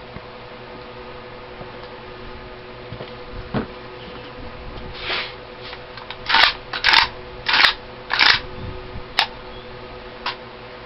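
AK-47 action worked by hand as a function check after re-assembly: a run of about six sharp metallic clacks a little past halfway, with a few lighter clicks before and after.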